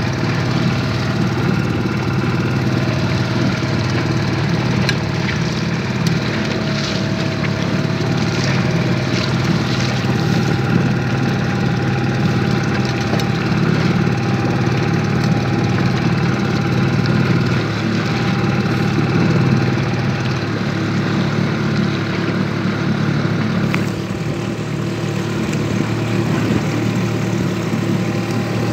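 Outboard motor pushing a PVC inflatable boat, running steadily at a constant pitch.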